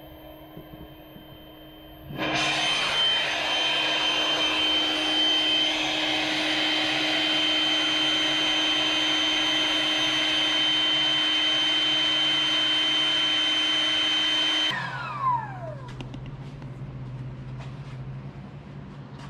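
An electric motor-driven machine starts about two seconds in and runs loud and steady with a high whine for about twelve seconds. It is then switched off and whines down in falling pitch, leaving a low hum.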